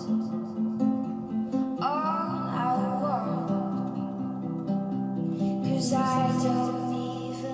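Music: a song with plucked guitar and a low melodic line, and a voice singing over it.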